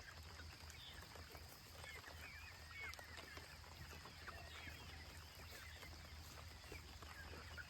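A flock of young chickens cheeping softly, many short high peeps overlapping.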